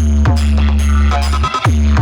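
Loud electronic DJ remix played through a Bangla DJ box speaker setup, with a heavy sustained bass note that drops out briefly and a sliding, falling pitch at the start of each new note.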